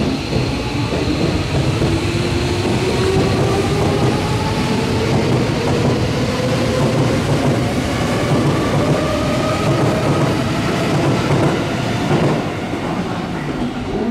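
Tobu Skytree Line electric train pulling away, its traction-motor whine rising steadily in pitch as it gathers speed over the rumble of wheels on the rails.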